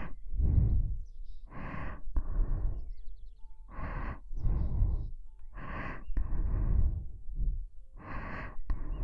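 Close-up breathing into the ear of a KU100 binaural dummy-head microphone: about five slow breath cycles, each an in-breath followed by an out-breath.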